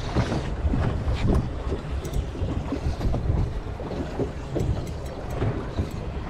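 Wind buffeting the microphone aboard a boat at sea, an uneven low rumble, with a few light clicks now and then.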